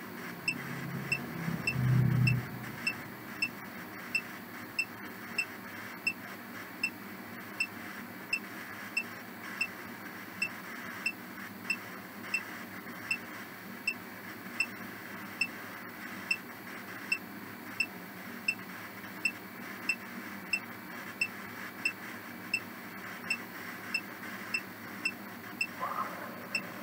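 Short high electronic beeps repeating evenly, about one and a half a second, over a steady hiss, from a ghost-hunting app running a session. A brief low hum about two seconds in.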